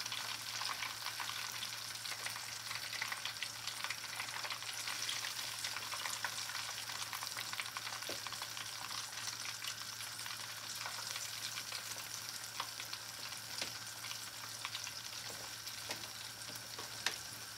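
Hot oil in a deep-fry pot sizzling with a steady hiss and a constant stream of fine crackles around floured chicken tenders just dropped in to fry.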